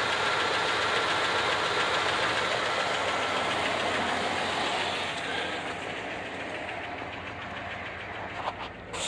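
1988 Dodge Ramcharger's V8 engine idling, heard close up at the front of the engine by the belts and fan. It grows quieter about five seconds in, and a few light clicks come near the end.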